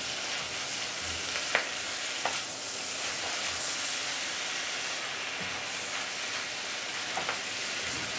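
Kwetiau noodles and vegetables sizzling in a hot non-stick wok while a spatula stirs and tosses them, with a few sharp knocks of the spatula against the pan.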